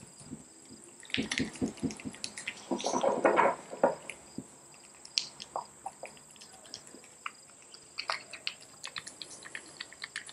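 Close handling noises: scattered small clicks and rustles, with a denser wet-sounding rustle about three seconds in.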